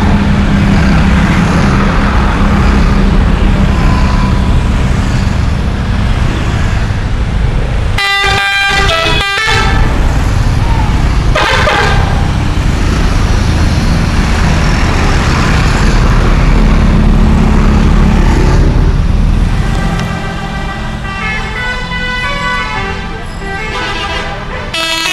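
Telolet horn on an Indonesian tour bus: a multi-tone musical air horn sounding in short bursts of several notes, once about a third of the way in, briefly again just after, and in a longer run through the last few seconds. Under it runs the heavy low rumble of the bus engine.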